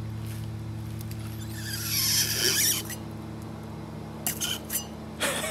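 Worn front shock absorber from a 1965 VW Beetle being pushed and pulled by hand, giving a squeaky hiss about two seconds in and a few short clicks near the end. The shock is worn out.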